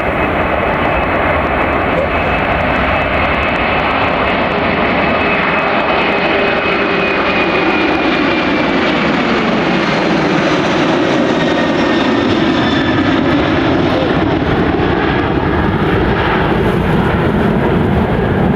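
Boeing 747's four jet engines running loud and steady as the airliner passes, with a high whine that slowly falls in pitch.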